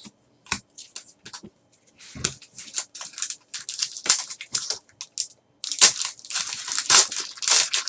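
Trading card packs being torn open and handled: irregular crinkling and crackling of pack wrappers and cards, in quick clusters.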